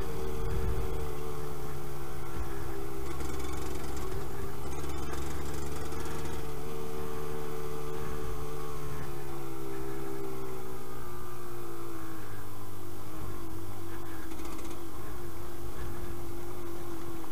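Yamaha DT125 YPVS two-stroke single-cylinder trail bike engine running at modest revs, its pitch drifting slowly up and down with the throttle.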